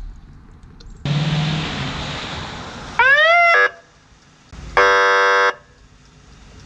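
Police car siren giving a short rising whoop, followed by a steady horn-like blast lasting under a second. Before them, about a second in, there is a brief rush of noise.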